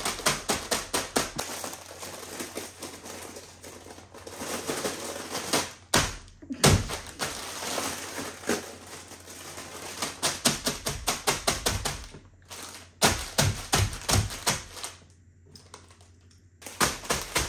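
Rapid, evenly spaced ticking, about four clicks a second, like a clock or timer sound effect, breaking off briefly a few times.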